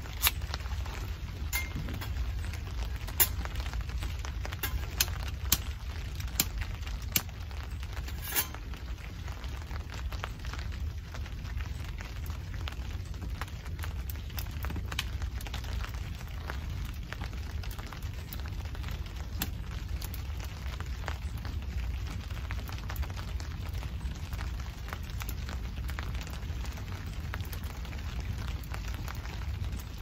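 Steady patter of rain on a tarp overhead, with a few sharp clicks and crackles in the first eight seconds or so as kindling is lit in a small folding wood stove.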